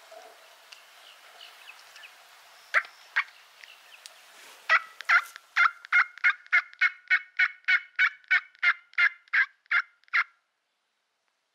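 Turkey yelping: two single yelps about three seconds in, then a long, evenly paced run of about seventeen loud yelps at roughly three a second that stops abruptly.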